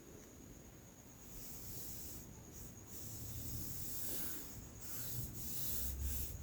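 Faint, irregular rubbing and scraping as electrical wire is handled and fitted to a contactor's terminal, coming in uneven strokes from about a second in.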